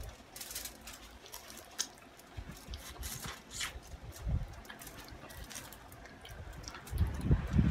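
Eating sounds: wet chewing and mouth noises with scattered small clicks. A few low bumps come near the end.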